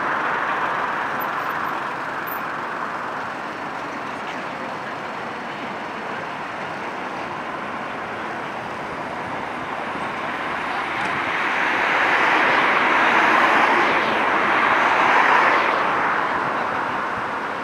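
Street traffic noise as a two-car Tatra T3SUCS tram pulls in to a stop. The steady hiss grows louder about two-thirds of the way through and eases again near the end.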